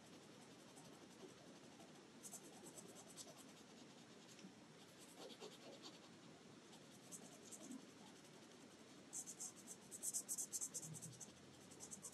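Faint scratching of a fine-tip black pen on paper as small triangles are filled in with ink. It comes in short runs of quick strokes, busiest in the last few seconds.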